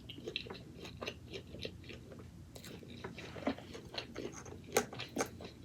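Close-up chewing and crunching of food, with irregular crisp clicks and wet mouth sounds, a few louder crunches near the end.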